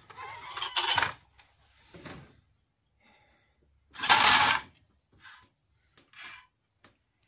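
Small electric motor driving a pinion gear along a rack in several short bursts, with gear clatter and the robot scraping on concrete; the loudest burst is about four seconds in.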